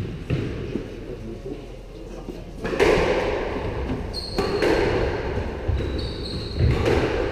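Squash rally: the rubber ball struck by rackets and slapping off the court walls, several sharp hits about every second and a half to two seconds, each ringing on in the hard-walled court. Short high squeaks of shoes on the wooden floor come in the second half.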